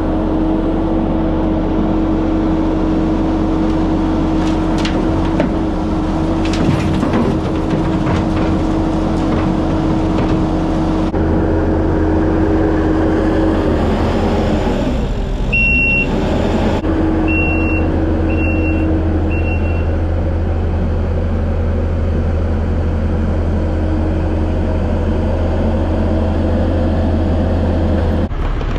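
Kubota SVL75 compact track loader's diesel engine running steadily at working speed. Dirt and rocks clatter into a steel dump-truck bed in the first several seconds, the engine note dips and recovers about halfway, and four short high beeps sound just after.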